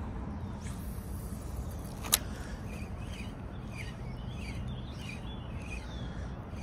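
A spinning rod being cast: a faint swish, then one sharp click about two seconds in, typical of the reel's bail snapping shut. Birds chirp repeatedly from about three seconds in, over a low steady rumble.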